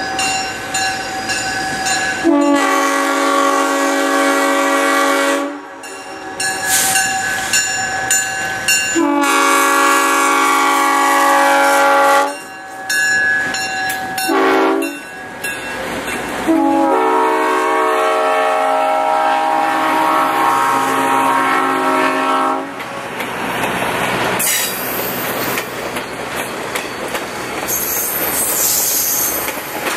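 Diesel locomotive air horn sounding the grade-crossing signal as the train approaches: two long blasts, a short one, then a final long one, each a steady chord of several tones. Then the train rolls past close by with a rumble and wheel clatter, and a high squeal from the wheels near the end.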